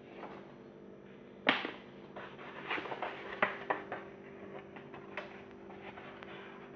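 Handling noise while unboxing speakers: a sharp knock about a second and a half in, then a run of clicks and crackles and one more click later, over a steady low hum.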